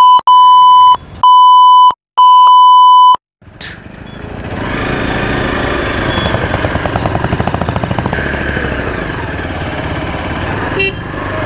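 A loud censor bleep, a steady high beep tone switched on and off several times over the first three seconds, cutting sharply in and out. Then the Hero XPulse 200's single-cylinder engine pulls away and runs steadily under way.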